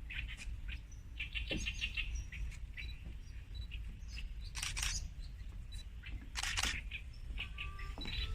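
Birds chirping and calling, with a quick run of repeated notes about a second in and two louder, harsher calls around the middle and near the end, over a steady low rumble.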